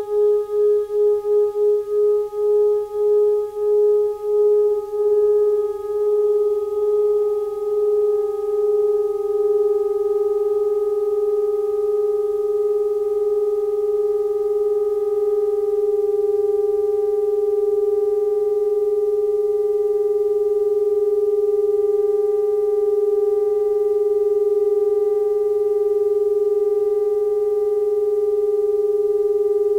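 Drone music for saxophone quartet and electronics: one sustained pitch held with faint overtones above it. At first two slightly detuned tones beat against each other in a fast pulse. The pulse slows over about the first ten seconds as they come into tune, leaving a steady unison.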